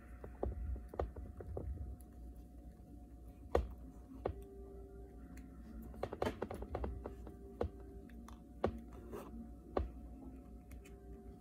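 Small repair tools and tiny metal parts clicking and tapping against an iPhone 6s frame as it is taken apart: light, irregular clicks, with a few sharper ticks and a short cluster about six seconds in.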